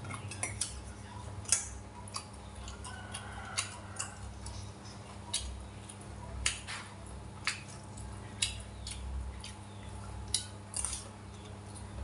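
A metal spoon and chopsticks clinking and scraping against a stainless-steel bowl of rice: scattered sharp clicks, roughly one a second, over a steady low hum.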